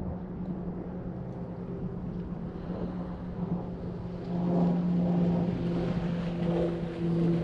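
An engine drone holding a steady pitch, growing louder about four seconds in, with a second, higher tone joining near the end.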